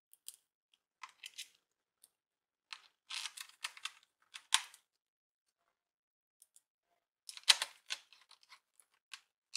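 Small screwdriver clicking and scraping as it drives the tiny screws that hold a hard drive in a laptop's drive bay: irregular short clicks and scratchy bursts, with a sharper knock late on.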